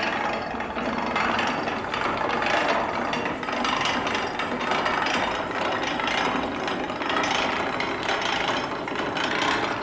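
Hand-cranked mangle being turned: its gears and rollers clatter and ratchet, swelling with each turn of the crank about once a second.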